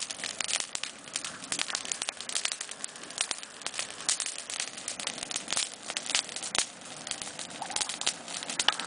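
Bonfire of freshly pruned olive branches crackling, with a dense, irregular run of sharp pops and snaps.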